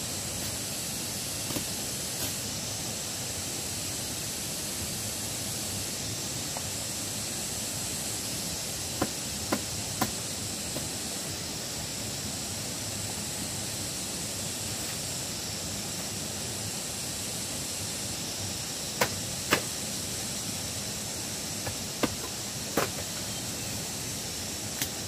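Steady outdoor hiss with a bright high band running throughout, broken by scattered sharp knocks and clicks from hands-on work around a bamboo chicken coop: a cluster of three about nine to ten seconds in, two more near nineteen seconds, and a few more near the end.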